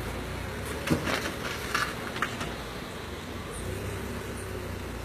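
Car engine idling steadily as the hatchback is manoeuvred in a tight parking spot, with a few short knocks or scuffs about one to two seconds in.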